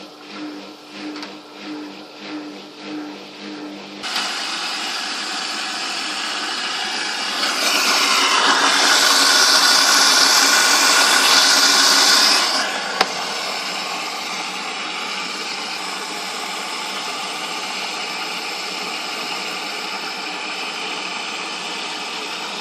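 Fagor washing machine running: a pulsing hum for the first few seconds, then a sudden switch to a louder steady whir. A still louder hiss rises for several seconds in the middle, then ends, followed by a single click.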